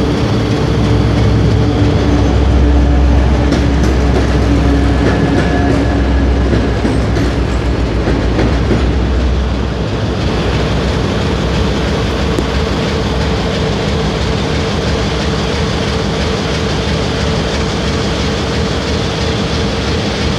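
2M62U diesel locomotive passing under power with a freight train: the steady drone of its two-stroke 14D40 V12 diesel engines, with the wagons' wheels clacking over the rail joints. The heavy low rumble eases about ten seconds in.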